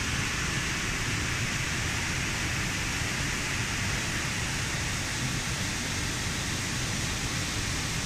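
Steady rushing of water pouring over a low waterfall and running down a shallow, rocky creek, an even hiss with a low rumble beneath.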